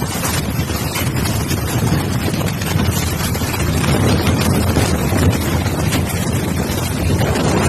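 Strong storm wind blowing hard across the microphone as a loud, continuous rush of noise, heavy in the low end, without a break.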